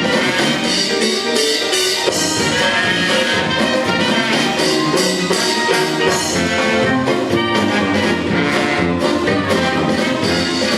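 Brassy orchestral show music with trumpets and trombones over a steady beat.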